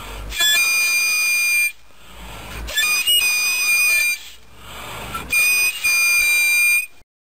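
Homemade crown-cap whistle, a bottle cap with a stretched balloon-rubber membrane, blown by mouth: three steady high-pitched toots of about a second and a half each, with short pauses between.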